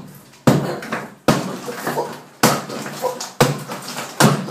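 Hammer blows against a tiled wall as it is being broken up: five heavy strikes about a second apart, each with a short ringing tail.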